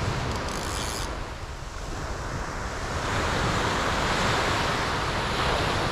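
Sea surf washing onto the beach, with wind buffeting the microphone. A wave surges louder about three seconds in.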